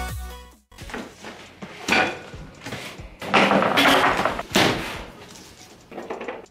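Stainless steel work table being unpacked from its cardboard box: irregular knocks and light metallic clanks from the wire shelf and steel parts being handled, with a stretch of cardboard scraping and rustling in the middle.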